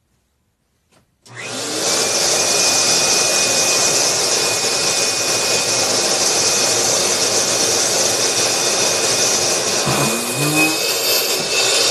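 Vacuum cleaner switched on with a click about a second in, spinning up within half a second to a steady loud rushing run with a thin high whine. Near the end the level dips briefly and its tone shifts.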